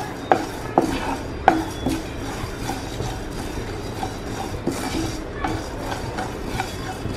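A wooden spatula stirs and scrapes dry whole coriander, fennel and cumin seeds around a nonstick frying pan as they dry-roast. The seeds rattle steadily across the pan, with a few sharp knocks in the first two seconds.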